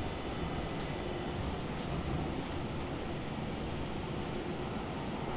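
Steady rumble of a subway train in motion, heard from inside the passenger car.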